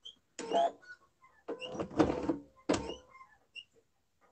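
Electric sewing machine stitching in several short spurts, its motor humming steadily during each run and stopping in between.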